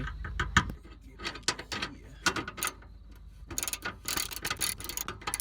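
Rapid light metallic clicks and rattles from the work on a loose exhaust sheet-metal piece that has just been bolted on, the clicking thickening about three and a half seconds in.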